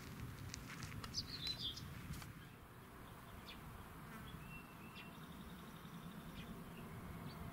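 Birds chirping and calling in short notes over a faint, low buzzing hum, with no train or crossing bell sounding yet.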